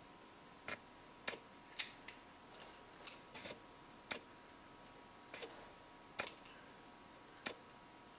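Irregular light clicks and taps, about ten in all, of a small metal keychain flashlight-laser pointer and its little metal carabiner being handled in the fingers: the carabiner's spring gate snapping and the metal parts knocking together.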